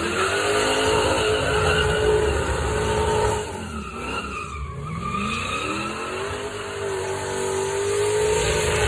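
1973 Mercury Cougar's V8 held at high revs during a burnout, rear tyres spinning and squealing. The revs drop and climb back about four seconds in, then are held high again.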